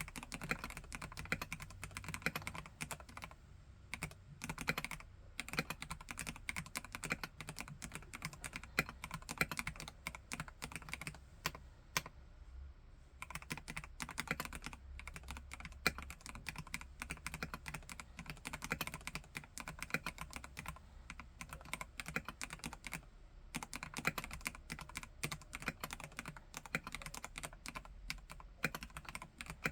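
Typing on a Vortex KBT RE:68 mechanical keyboard with Gateron G Pro Red linear switches: a fast, continuous stream of keystrokes, broken by a few brief pauses.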